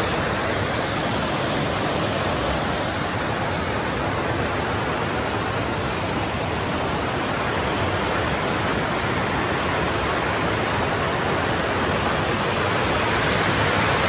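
Creek water spilling over a small stone weir into a pool, a steady rushing of falling water.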